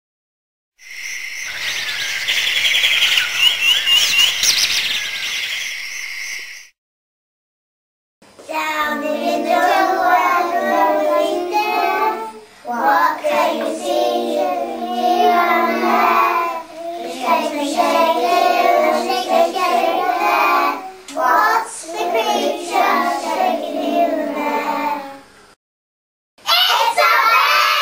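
Young children singing together in short sung lines. It is preceded, near the start, by a few seconds of high chirping sounds and a brief silence.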